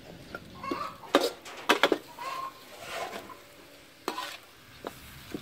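A metal spatula stir-frying Chinese kale in an aluminium wok, scraping and clanking against the pan over a faint sizzle. There are several sharp clanks, the loudest a quick run of three a little under two seconds in.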